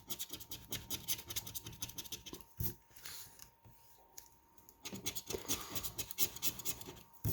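Rapid scraping strokes scratching the latex coating off a lottery scratch-off ticket. They come in two runs with a short lull between them.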